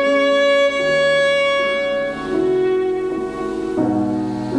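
Slow classical music: a violin playing long-held notes over a lower accompaniment, the notes changing about every second or two.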